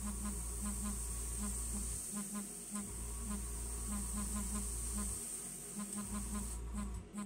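Airbrush compressor and spray-booth fan running with a steady buzz, under a high hiss of air that cuts off about a second before the end. A deep low hum drops out and comes back a few times.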